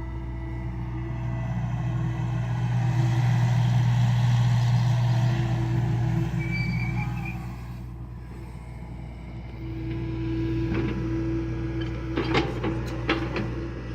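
John Deere excavator's diesel engine running under varying load, swelling for several seconds, easing off, then building again. Several sharp metallic knocks come near the end.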